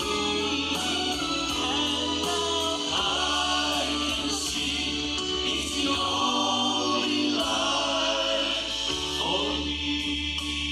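Gospel song sung by several voices together in harmony, with steady low accompaniment notes underneath.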